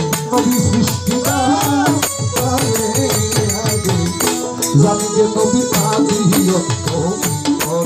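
Live Baul folk song: a man sings over an electronic keyboard, with hand drums and rattling percussion keeping a steady, fast beat.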